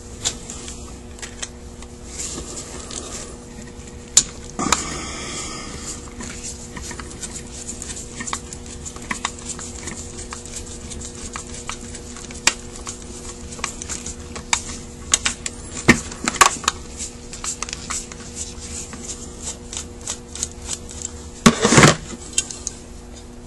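Irregular small metal clicks, ticks and short scrapes of a screwdriver and loose parts against a Carter WA-1 carburetor's cast body as it is taken apart, over a steady low hum.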